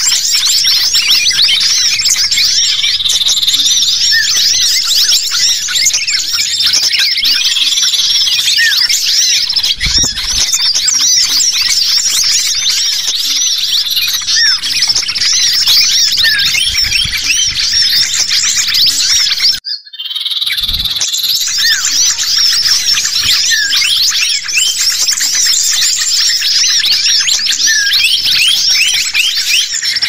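Dense, noisy chorus of small songbirds chirping and twittering rapidly over one another, led by agitated common iora (cipoh) calls: a bird-lure recording for calling in wild birds. It breaks off for a moment about two-thirds of the way through, then resumes.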